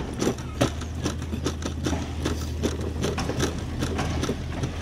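Hard plastic wheels of a toddler's ride-on toy car rattling and clicking over a concrete sidewalk as it is pushed along, several uneven clicks a second, with a steady low engine hum underneath.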